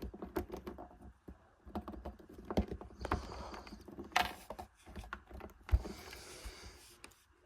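Small plastic clicks and taps as a Mattel Hammond Collection Mussaurus action figure is handled and its tiny swappable hands are pulled off and pushed back on, with one sharper click about three-quarters through.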